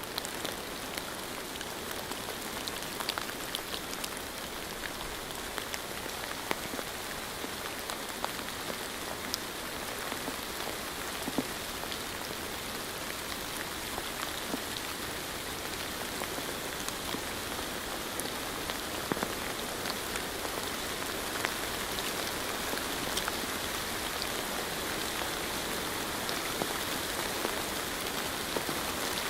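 Steady rainfall, an even hiss with many individual drops ticking sharply throughout.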